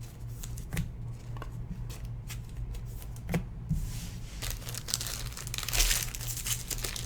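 Trading-card pack packaging being handled with scattered clicks, then torn and crinkled open from about four and a half seconds in, over a steady low electrical hum.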